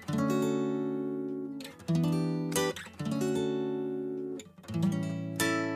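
Background music: an acoustic guitar strumming chords, each struck sharply and left to ring and fade before the next, a new chord every second or two.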